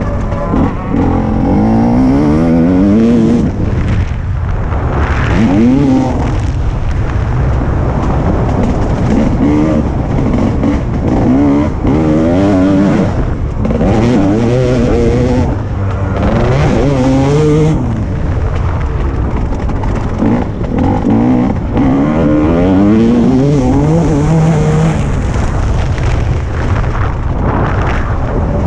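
TM 300 two-stroke motocross bike's single-cylinder engine, ridden hard: it revs up in repeated rising sweeps through the gears and drops back between them, under a steady low rumble.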